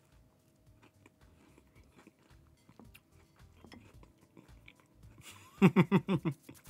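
A person biting into and chewing a warm, syrup-topped toaster pastry, faint soft mouth clicks and crunches. About five and a half seconds in, a quick run of short vocal sounds, each falling in pitch.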